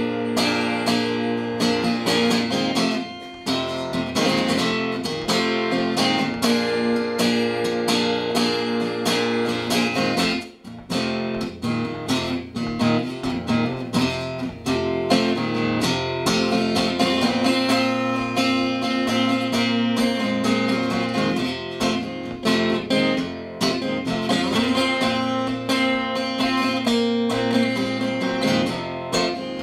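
Acoustic guitar strummed steadily through an instrumental break in a song, with no singing. There is a brief drop in the playing about ten seconds in.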